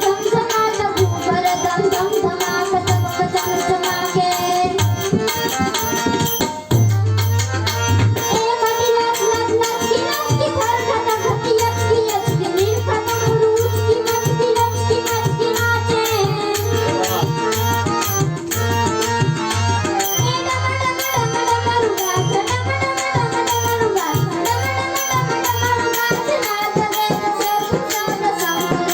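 Indian chhand music: tabla keeping a fast, steady rhythm with deep bass strokes under a sustained melody line, with a short break about six and a half seconds in.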